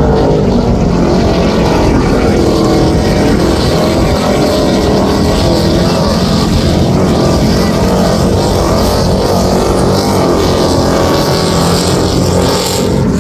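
Offshore racing powerboat running at high speed as it passes, its engines a loud, steady drone over the hiss of water and spray.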